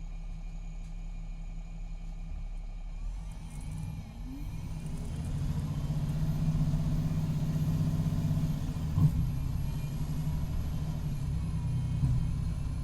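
Diesel bus engine, a Cummins ISX12 in a 2019 MCI D4500CT coach, idling, then pulling away with a rising engine note and a climbing whine, with a single sharp knock about nine seconds in before the pitch begins to drop. The coach's Allison B500R automatic transmission is failing, in its last stages.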